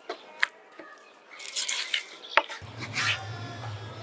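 Kitchen knife cutting raw chicken on a plastic cutting board, with scraping strokes and two sharp taps as the blade hits the board, about half a second in and again near two and a half seconds.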